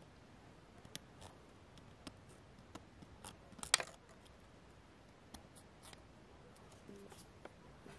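Small scissors snipping through a thin red sheet around a paper template: a series of short, quiet snips with one louder snip a little before halfway.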